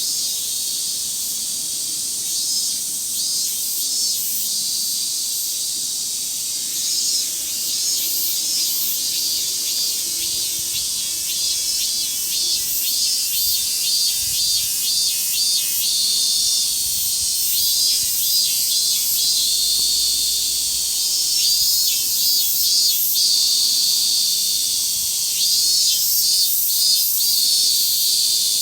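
A chorus of cicadas, mainly min-min cicadas (Hyalessa maculaticollis), making a steady high buzzing hiss. Individual calls pulse over it in repeated bursts, more often in the second half.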